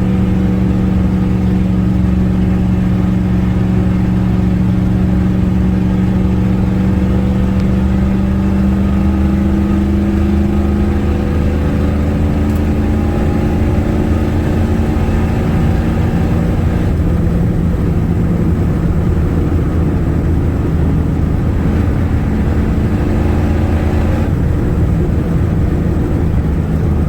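Ford 6.9 IDI diesel V8 pickup running on the road, its exhaust note loud and steady. The engine pitch sinks slowly for most of the stretch, then changes about two-thirds of the way through and again near the end, as with throttle or gear changes.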